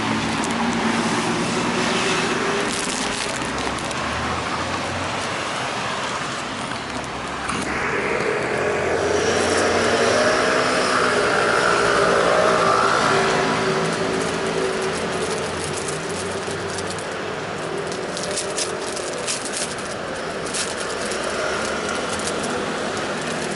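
Road traffic at a city intersection: cars and scooters running past in a steady wash of noise, growing louder around the middle as a vehicle passes close.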